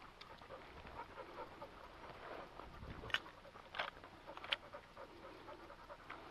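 Hunting dog panting faintly, with three sharp clicks or taps spread over about a second and a half near the middle.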